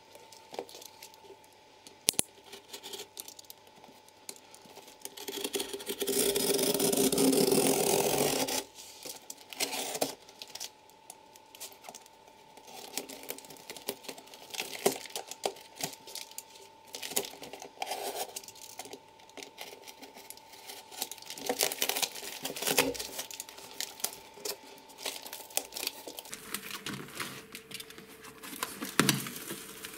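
A taped cardboard parcel being cut and torn open by hand: packing tape and cardboard tearing, with scattered clicks, crackles and rustles of handling. About six seconds in comes one loud, unbroken tearing sound lasting about three seconds.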